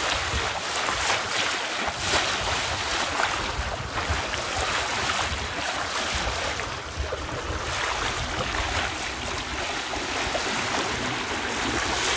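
Water rushing and splashing along a sailing yacht's hull under sail at about five and a half knots, with wind buffeting the microphone.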